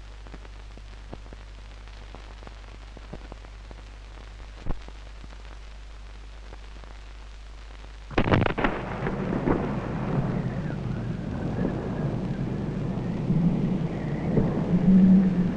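Avalanche coming down a slope: it starts suddenly about eight seconds in and goes on as a continuous rumble that builds toward the end. Before it there is only a steady low hum and a single click. The narrator calls this avalanche a flow type.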